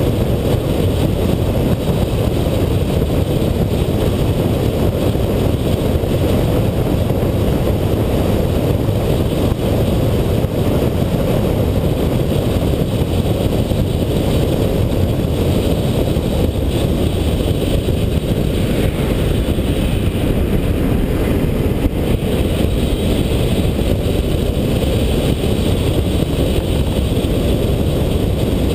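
Car driving along a road: a steady low rumble of road and wind noise.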